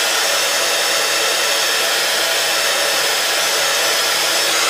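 Embossing heat tool running steadily, blowing hot air to melt embossing powder until it goes shiny.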